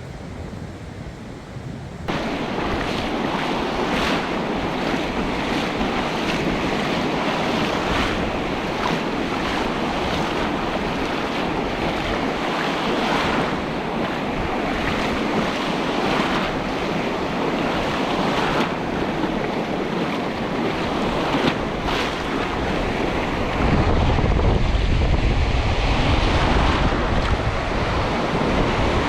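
Sea waves washing on the shore, with wind buffeting the microphone. The noise comes in suddenly about two seconds in, and the low wind rumble gets heavier near the end.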